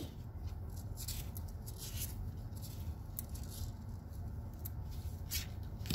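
Small metal nail clippers snipping a kitten's claws: scattered faint clicks over a low steady hum.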